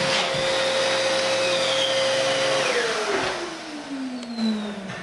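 Vacuum cleaner running on a carpet with a steady motor whine. About two and a half seconds in it is switched off, and its pitch falls steadily as the motor winds down.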